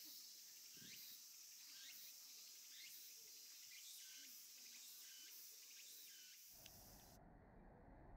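Faint outdoor ambience near silence: a steady high insect-like hiss with short rising chirps about once a second. Near the end it switches abruptly to a low rumbling background noise.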